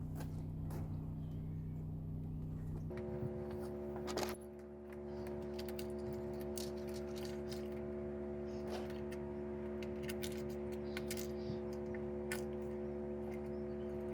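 Scattered light clicks and clinks of metal roof-bar fittings being handled, over a steady background hum.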